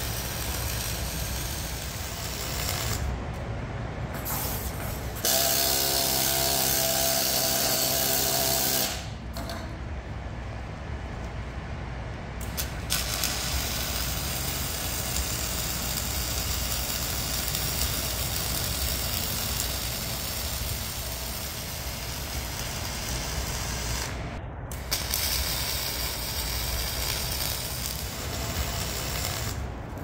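Wire-feed arc welding: a steady crackle and hiss as weld is built up to fill a gap in the corner of a bulldozer blade. It comes in several runs with short breaks, and about five seconds in a louder, steady pitched hum lasts about three and a half seconds.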